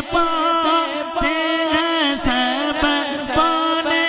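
Male naat reciter singing through a microphone in long, wavering held notes over a steady low drone.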